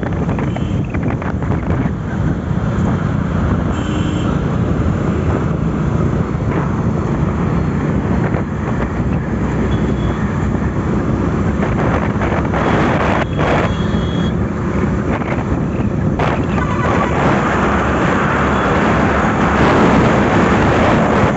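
Wind rushing over the microphone of a moving motorcycle, with the steady hum of the bike and road noise underneath, getting a little louder near the end.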